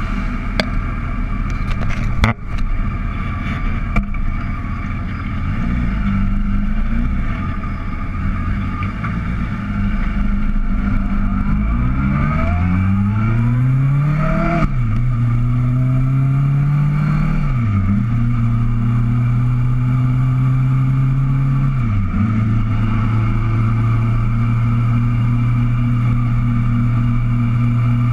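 Sport-touring motorcycle engine heard from a handlebar-mounted camera, running at low revs, then pulling away with the note rising in pitch. It dips sharply at three upshifts and then settles into a steady cruise, with road and wind rush underneath.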